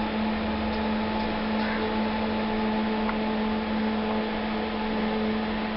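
A 48-volt hybrid solar inverter/UPS running: a steady electrical hum over an even rushing noise from its cooling fan.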